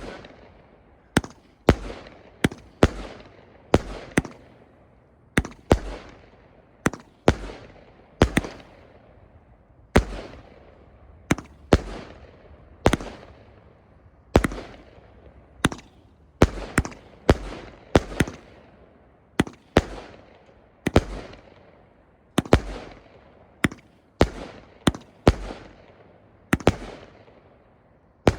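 Fireworks firing in a long barrage: loud sharp bangs at an irregular pace of one or two a second, each trailing off in a fading echo.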